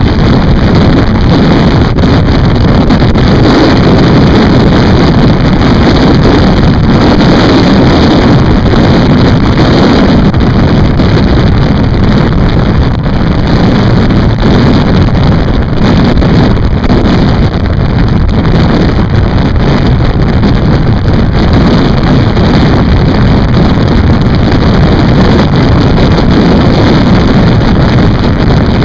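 A motorcycle riding steadily at road speed, heard as loud, even wind rush buffeting the bike-mounted microphone, with the bike's running noise blended in.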